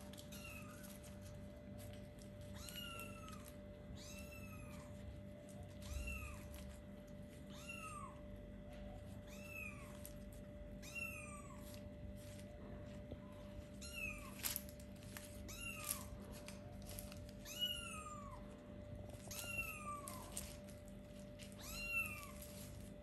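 Four-week-old kitten meowing over and over: high-pitched, arching calls about every second and a half, with a few sharp clicks between them.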